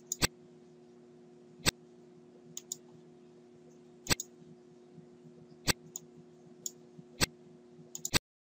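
Computer mouse clicking, single clicks and quick pairs every second or so as cards are played on screen, over a steady low hum.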